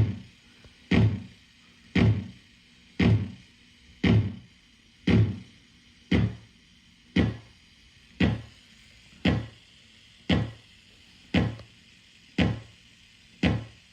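Homemade analog kick drum circuit (TL074 op amp with a bridged-T network in its feedback loop) triggered about once a second. Each hit is a short click dropping into a low thump that dies away quickly, the decay set short.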